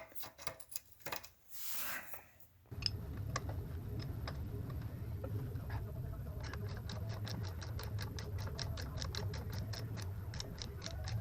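Socket ratchet clicking in regular strokes, several clicks a second, over a steady low hum; the clicking becomes steady about halfway in.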